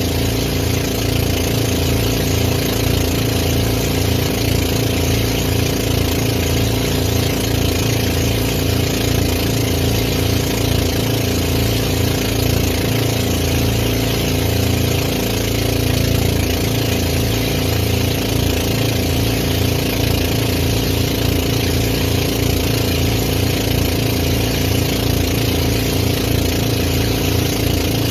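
Boat engine running steadily, heard from on board, with an even throbbing pulse.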